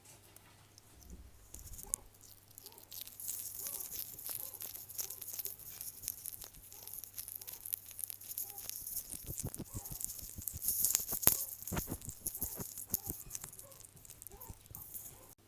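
A pet animal chewing a beetle: rapid, crisp crunching and crackling of the insect's hard shell, heaviest about two-thirds of the way through. A faint low hum runs under it.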